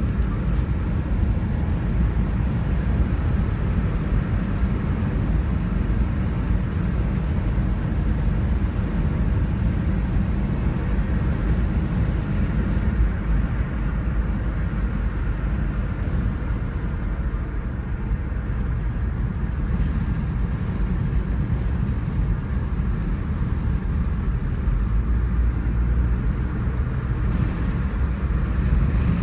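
Steady low road and engine rumble of a car driving at cruising speed, heard from inside the cabin.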